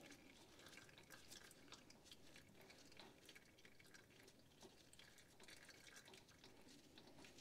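Near silence with faint scattered ticks: hydraulic fluid dripping from the pump's hose fitting into a drain pan.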